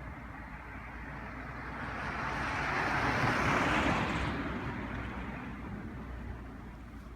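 A road vehicle passing by, its noise swelling to a peak about three to four seconds in and then fading away.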